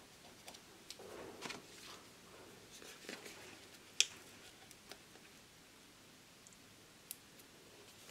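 Faint paper rustling and small clicks from sticky dots being peeled off their paper backing and pressed onto a masked-off aluminium sheet, with one sharp tick about four seconds in.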